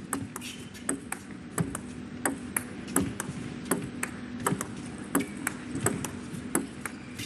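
Table tennis ball being hit back and forth in a long rally, chopped defensive returns against attacking strokes. It makes a steady run of sharp clicks of ball on bat and table, two or three a second.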